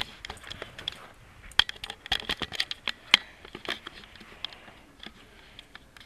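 Beagle scrabbling under a cover thrown over it, trying to get out: irregular scratchy clicks and rustling, busiest in the first half.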